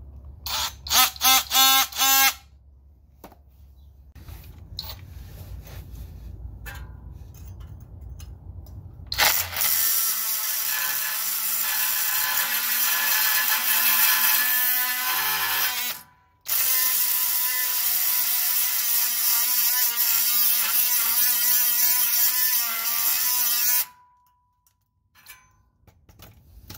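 Atomic oscillating multi-tool with a carbide blade, buzzing in a few short bursts, then cutting through rusted exhaust bolts for about fifteen seconds with a brief stop partway through.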